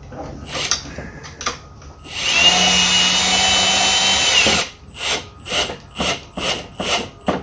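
Power drill running at a steady speed for about two and a half seconds before stopping. Short knocks and clicks of parts being handled come before and after it.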